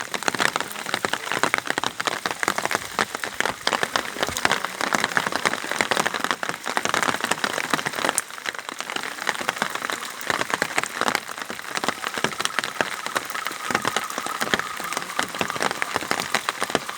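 Steady rain: a dense, irregular patter of drops hitting surfaces.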